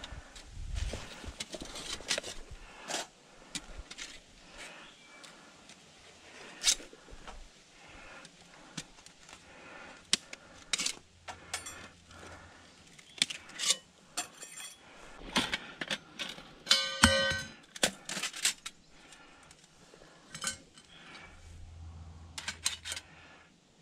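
Firebox folding steel stove being unpacked and assembled: its thin metal panels and parts clink, click and rattle against each other in a scattered, irregular series. The loudest is a clink with a brief metallic ring about two-thirds of the way through.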